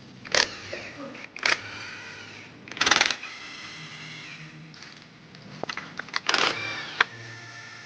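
Metal timing parts from a Ford 3.5 L EcoBoost engine being handled: four sharp metal knocks, each leaving a brief ringing tone, with a few lighter clicks between them.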